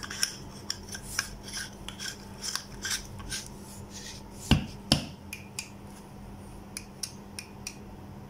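Searchlight torch head being screwed by hand onto its body: the threads rasp and click in short strokes as it turns, with two louder knocks about halfway through, then only a few light ticks as it seats.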